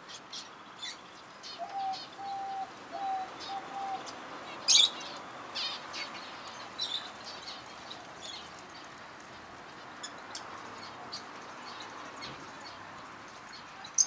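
Aviary flock of small parrots (kakariki parakeets, budgerigars and lovebirds) chirping, with short sharp calls scattered throughout and the loudest about five seconds in. About two to four seconds in comes a run of four short, low, even notes.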